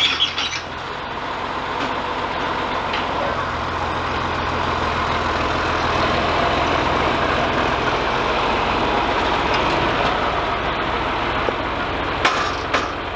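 John Deere farm tractor engine running steadily while the front loader's hydraulics raise a hay bale high on a bale grab. The sound builds over the first few seconds and then holds, with a couple of short knocks near the end.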